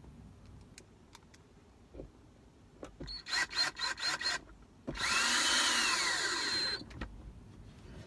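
DeWalt 20V cordless drill driving screws into the armrest lid: several short trigger blips about three seconds in, then a steady run of nearly two seconds that cuts off suddenly.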